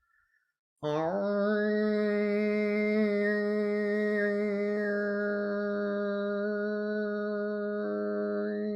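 A woman's voice holding one long, low sustained tone, a sounded 'om'-like toning note. It begins about a second in with a slight slide up into the pitch, then holds steady, its colour shifting a little near the end.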